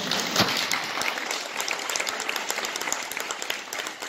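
Audience applause, many hands clapping together, loudest just after it starts and then steady.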